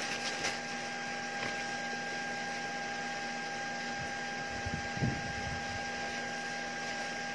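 A steady electrical hum with a thin high whine, over a faint hiss. About five seconds in, a few soft low bumps and rustles come from a paper tissue handled against the face.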